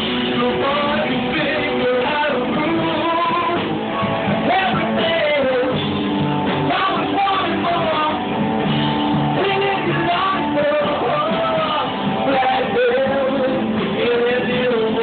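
Loud rock music with a singing voice and guitar, playing on without a break.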